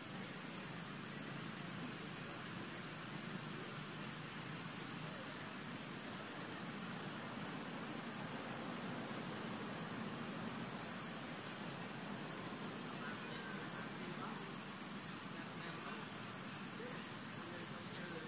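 Insect chorus in the trees, a steady unbroken high-pitched drone, over a faint low rumble of background noise.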